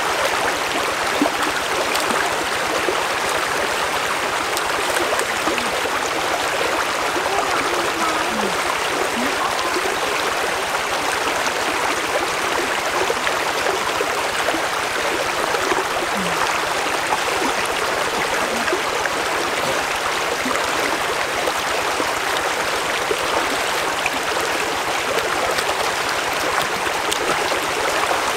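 Shallow stream running over rocks: a steady, even rush of flowing water.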